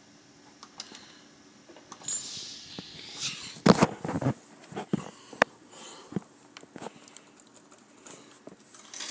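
Scattered clicks and taps of laptop keys being pressed, loudest in a cluster about four seconds in.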